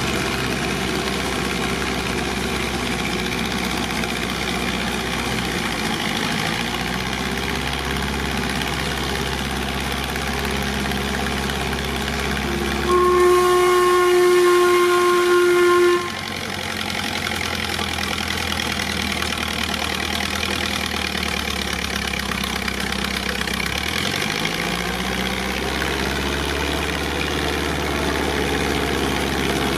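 Ford V8-based combination engine of a 1948 Schramm Model 60 crawler compressor running steadily, four of its cylinders firing and four working as the air compressor; the engine speed rises about two-thirds of the way through. In the middle, a loud whistle sounds for about three seconds over the engine.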